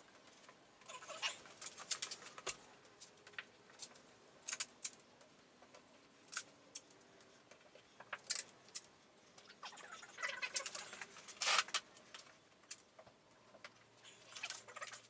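Scattered light clicks, taps and small rattles of hands working with tools and materials on the camper body, irregular throughout, with a couple of short scraping or rustling sounds about ten and eleven seconds in.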